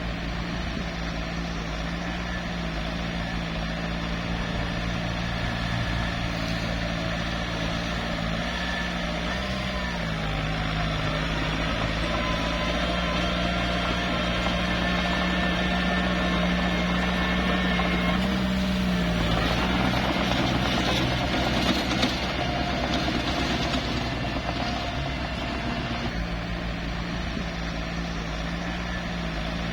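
Small bulldozer's diesel engine running steadily as it works dirt. Its pitch rises and drops back twice, and there is a rougher, noisier stretch near the middle.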